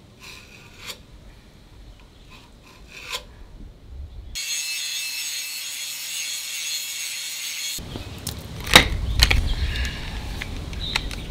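Hand work on a steel bracket for a truck frame: light scraping and tool clicks, then about three seconds of a grinder running against the steel to take the paint off, then loud metal clanks and clatter as the parts are handled.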